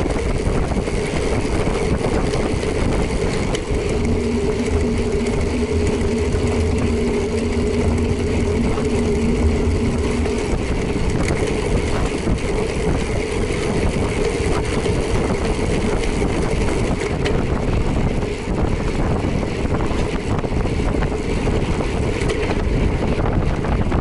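Motorcycle engine running steadily on the move, with wind rushing over the microphone. A second, lower engine note joins from about four to ten seconds in.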